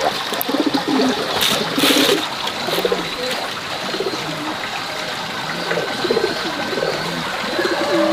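Birds cooing, a low call repeated every second or so, with a few light rattles in the first two seconds from seeds being handled in a woven bamboo tray.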